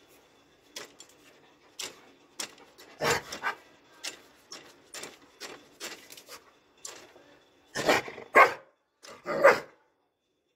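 Doberman barking in short, sharp barks, one cluster about three seconds in and three loud barks near the end.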